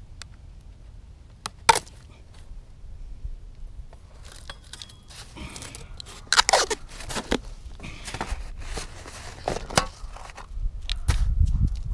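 Crusty snow crunching and scraping as a flat divider panel is pushed and worked down into it by hand, with a sharp click early on and the loudest scraping crunch about six and a half seconds in. A low rumble comes in near the end.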